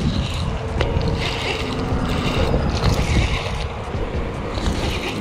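Wind buffeting the microphone as a steady low rumble, with a few short higher hissy patches every second and a half or so.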